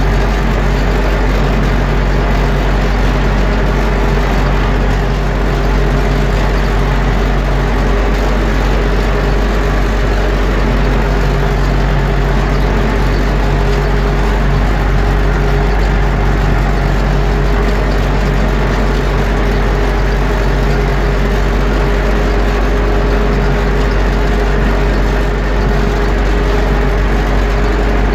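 Universal U650 tractor's four-cylinder diesel engine running at a steady speed as the tractor drives across the field, heard loud from inside the cab.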